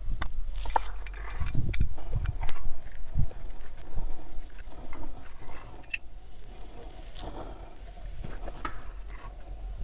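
Scattered knocks and light metallic clinks of hand work, with a few dull thumps in the first three seconds and a sharp click about six seconds in.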